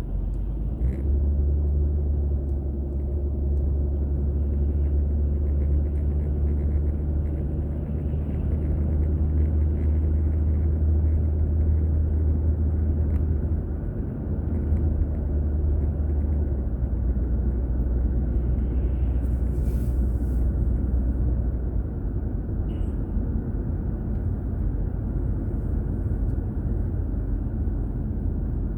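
Car driving, heard from a dashcam inside the cabin: a steady low rumble of engine and road noise that eases off about three-quarters of the way through. There is a brief hiss about two-thirds of the way in.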